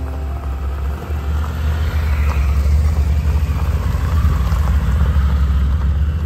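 BMW adventure motorcycles riding slowly past on gravel, their engines giving a steady low rumble that grows louder over the first few seconds as the lead bike passes close.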